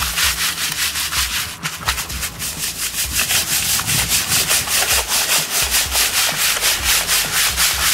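Gravel being wet-classified in an Arbor quarter-inch mesh classifier screen in a bucket of water, stirred and scraped by hand and with a metal tool. It makes a rasping, gritty swish that settles after a couple of seconds into an even rhythm of about five strokes a second.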